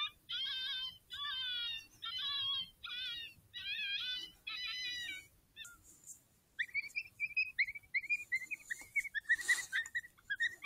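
High-pitched, wavering animal cries repeated about twice a second, fading out about five seconds in. After a short pause, a rapid run of high yips and chatter follows.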